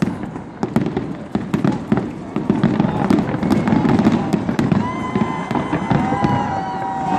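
Fireworks display going off: a dense, continuous crackle with many sharp pops of bursting shells. About five seconds in, a few steady held tones start over the crackle.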